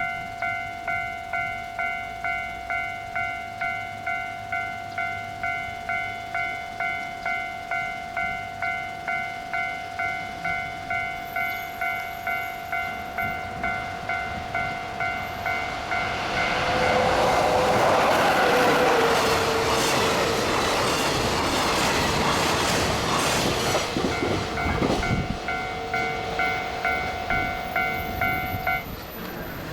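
A Japanese level crossing's electronic warning bell dings about twice a second. About 16 seconds in, an EF66 electric locomotive hauling a short container freight train passes at speed, its wheels clattering over rail joints and drowning out the bell. The bell is heard again as the train clears and stops just before the end.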